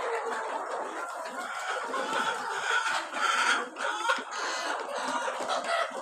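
A flock of Kadaknath chickens clucking and calling over one another without a break, many birds at once.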